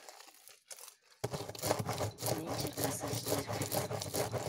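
A large blob of homemade slime, still sticky, being kneaded, stretched and pressed against a table by hand. It starts about a second in and goes on as a dense, irregular run of squelching and crackling.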